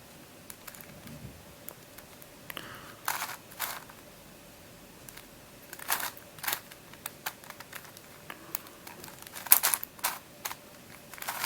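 Plastic Witeden Mixup twisty puzzle being turned by hand, its layers clicking in irregular, scattered clicks, with a few louder pairs of clicks.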